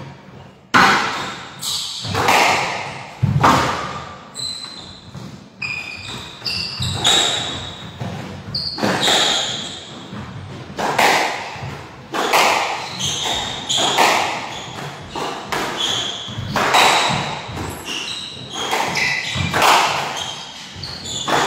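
A squash rally: the ball is struck by rackets and smacks off the court walls about once a second, each hit echoing around the enclosed court. Short high squeaks of shoes on the wooden floor come between the hits.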